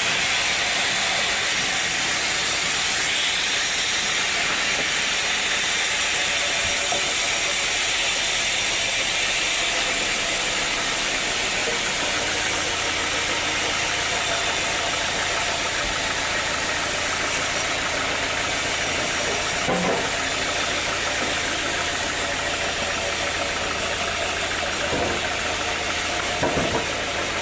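Sawmill machinery running steadily: an engine with a loud, even hiss over it. A few short knocks come about two-thirds of the way in and near the end.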